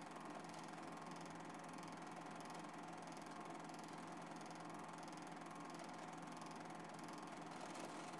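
Faint steady mechanical hum with hiss and a slight regular pulse, unchanging throughout.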